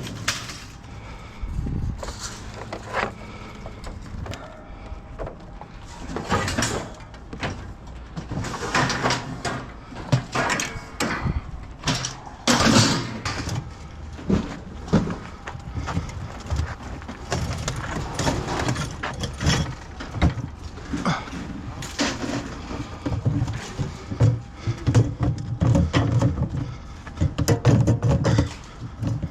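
Irregular knocks, thuds and clanks of things being handled and moved, coming in quick clusters at times, with brief gaps of lower background noise between.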